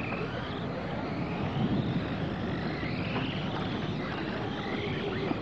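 Radio-controlled race cars running on an asphalt track, their motors whining in several rising and falling pitch sweeps as they speed past, over a steady hiss.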